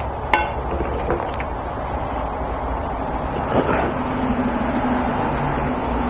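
Steady low background hum and hiss, with a short ringing glassy clink about a third of a second in and a few fainter clicks after.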